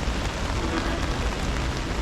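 Heavy rain falling and pattering on surfaces: a steady dense hiss with a constant low rumble underneath.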